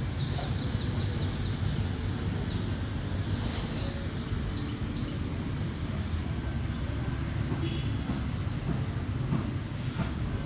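Insects droning outdoors: one steady high-pitched tone that never breaks, over a low rumble.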